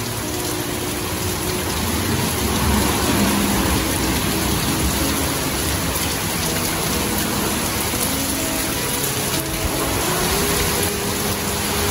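Heavy rain pouring steadily on grass, trees and hedges in a thunderstorm.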